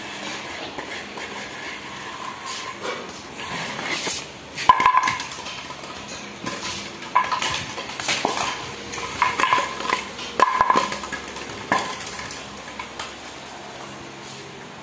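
Empty plastic bottle knocking and clattering against a hard floor as a puppy carries, drops and chews it: a string of sharp knocks, some with a short ring, spread through the middle.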